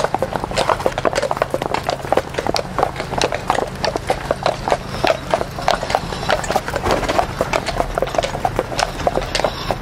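Belgian draft horses walking, their hooves clip-clopping in a quick, irregular run of overlapping hoofbeats, several a second, over a steady low rumble.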